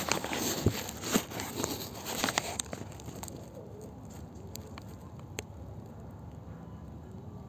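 Handling noise from the phone being moved against the loft's wire mesh: rustling and clicking, loudest in the first two or three seconds, then a quieter background with a few sharp ticks.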